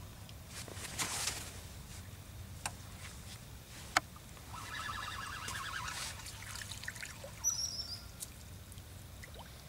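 A small fish splashing at the river surface as it is reeled in to the bank, with birds chirping and a sharp click about four seconds in.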